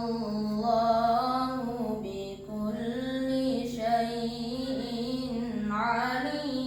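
Qur'an recited in the melodic tilawah style by a single voice, drawn out in long, ornamented held notes. There is a short breath break about two and a half seconds in, and a new rising phrase near the end.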